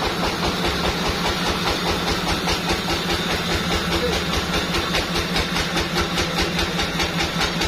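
Sawmill machinery running steadily, an engine-like hum with a fast, even pulsing.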